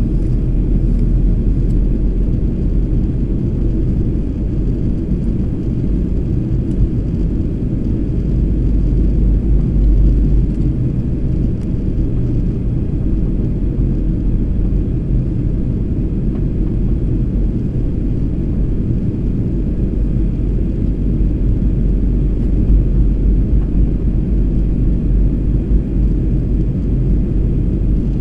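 Steady low rumble of a jet airliner's engines and airflow heard inside the passenger cabin during the descent.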